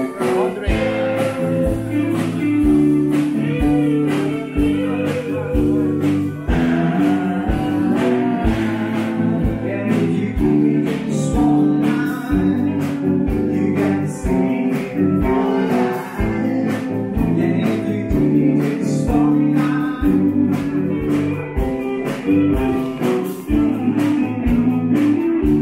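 A band playing a song: singing over guitar and bass, with a steady drum beat.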